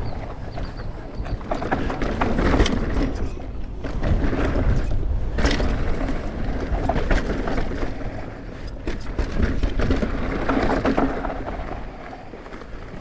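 Mountain bike rolling downhill over a dirt and rock trail: wind rushing on the microphone, tyres crunching, and the bike rattling and knocking over bumps. It quietens near the end as the bike slows.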